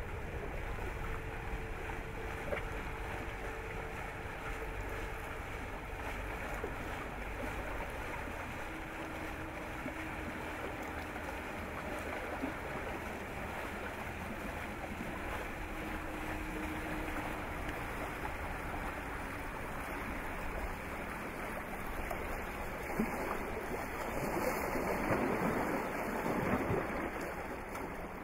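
Steady wash of water around a classic wooden electric motorboat under way, with faint humming tones coming and going in the first half. The splashing grows louder and rougher near the end.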